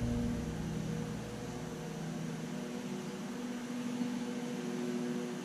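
Steady machine hum with a low, even tone over a soft hiss, unchanging throughout. The hands working the repair applicator make no clear sound.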